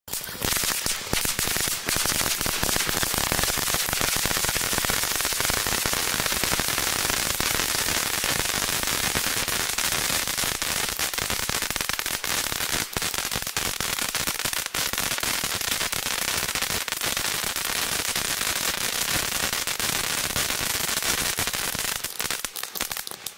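St8ment 'Bombas Y Granadas' cone fountain firework burning: a continuous rushing hiss of sparks thick with crackles and sharp pops. It fades out near the end.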